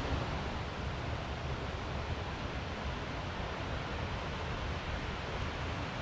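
Steady rushing of a flowing forest stream.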